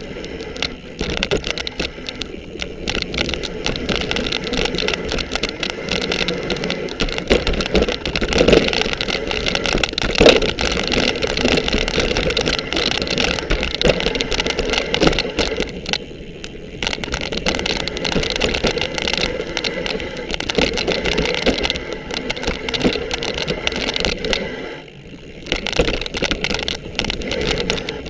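Mountain bike ridden down a rough dirt trail: the bike and its suspension fork rattle and clatter over roots and rocks, with tyre noise on the dirt. The noise dips briefly about two-thirds of the way through and again near the end.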